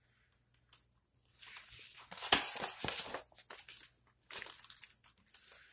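Paper page of a hardcover picture book being turned: rustling and crinkling, loudest about two seconds in, with a shorter rustle near the end as the page settles.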